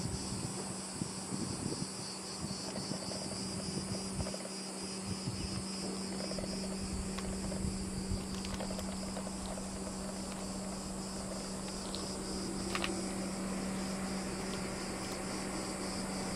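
Insects chirping steadily in a high-pitched, finely pulsing chorus, over a steady low hum.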